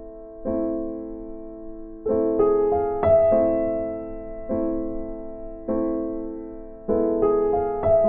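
Slow, gentle piano music: chords struck about once a second and left to fade, with a quick rising run of notes twice.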